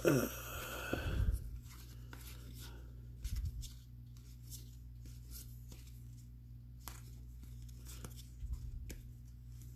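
Trading cards being handled and sorted by hand: a rustling slide of cards in the first second or so, then scattered light taps and clicks as cards are flipped and set down.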